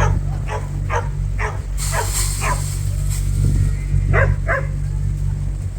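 A dog barking in short, sharp barks, about two a second for the first couple of seconds, then a pause and two more barks. A steady low machine hum runs underneath, and a brief hiss comes about two seconds in.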